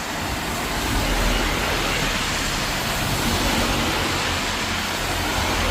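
A motor vehicle passing on a rain-wet street: a low engine rumble under a hiss of tyres on wet road, swelling about a second in and holding steady.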